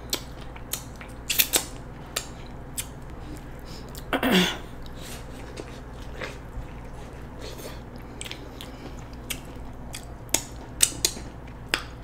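Close-miked eating of corn on the cob: crisp bites into the kernels and wet chewing and mouth clicks, in scattered short snaps. About four seconds in comes a brief vocal sound that falls in pitch, the loudest moment.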